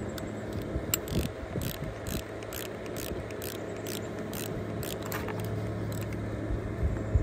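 Ratchet wrench clicking in an even rhythm, a little over two clicks a second, as a fitting on a hydraulic cab-jack pump is turned, starting about a second in. A steady low hum runs underneath.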